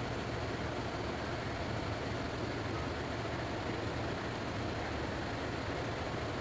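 Steady outdoor urban background noise with a low rumble and no distinct events.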